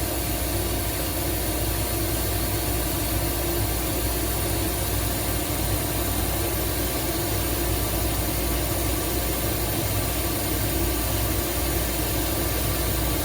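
Tube laser cutting machine running steadily while cutting 6x6 metal tube with a 3/8-inch wall: a constant machine hum over a low rumble, with a faint steady high whine.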